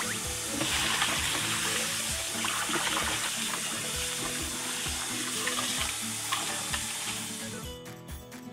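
Kitchen tap water pouring into a stainless steel bowl of raw meat strips and splashing as hands rinse and squeeze the meat; the water stops shortly before the end. Background music with a steady beat runs underneath.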